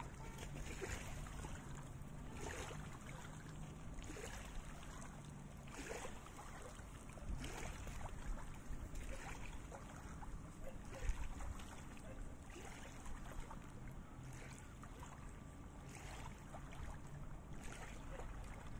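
Small wind-driven waves lapping against rocks at the water's edge, a soft splash every second or two, over a low rumble of wind on the microphone.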